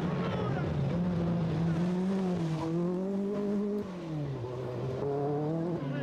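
Group B rally car engine revving hard on a gravel stage. Its pitch climbs and dips with the throttle, falls sharply about four seconds in, climbs again, then drops once more near the end.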